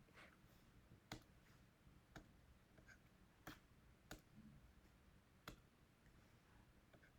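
Faint clicks of a stylus pen tapping on a writing tablet, about five of them at irregular intervals, over near silence.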